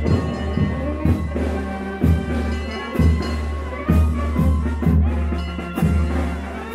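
Mexican banda (brass and percussion band) playing a tune while marching, with a deep sustained bass line and a strong drum beat about once a second.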